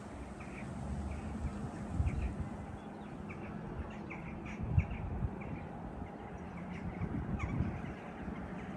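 Birds calling in many short, repeated chirps in quick succession, over wind rumbling and gusting on the microphone.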